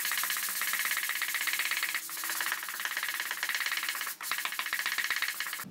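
Sandpaper on a hand sanding block scrubbed quickly back and forth over a flat pine board, a fast, even rasping rhythm, with a momentary pause about four seconds in.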